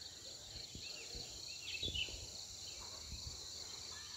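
A faint, steady insect chorus: a continuous high-pitched trill. A few short chirps come just before two seconds in, with some low thumps.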